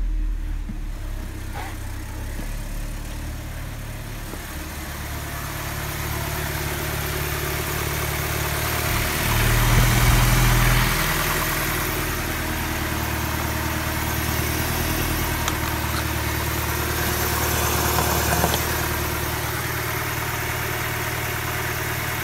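BMW N43B20A 2.0-litre four-cylinder petrol engine idling steadily at about 1000 rpm, first heard from the cabin and then under the open hood. It gets louder for about two seconds near the middle.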